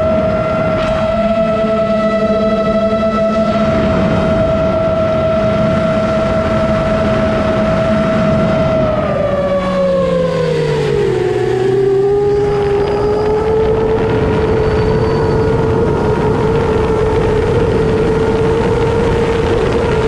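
FPV quadcopter's brushless motors and propellers whining at a steady pitch over a rush of wind. About nine seconds in the whine slides down as the motors slow, then settles a little higher and holds.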